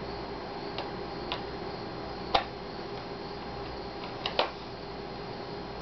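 A few light clicks of a small metal screwdriver against the laptop screen bezel's cover screws as they are driven back in, about five in all. The loudest comes about two and a half seconds in and two come close together near the end, over a steady background hum.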